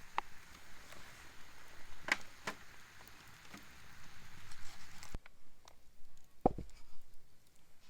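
Wood campfire crackling: scattered sharp pops and snaps, with a louder, deeper pop about six and a half seconds in.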